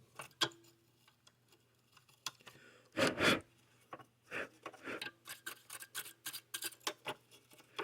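Handling noises at a sewing machine: scattered small clicks and knocks, then a string of short rubbing, scraping strokes, the loudest about three seconds in.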